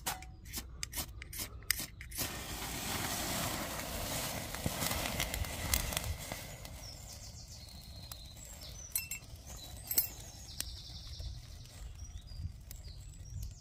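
Several quick scrapes of a ferro rod striking sparks in the first two seconds. Then magnesium powder on dry kindling in a Redcamp XL wood-burning stove ignites in a rushing flare that lasts about four seconds. It dies down to the faint crackle of the twigs catching.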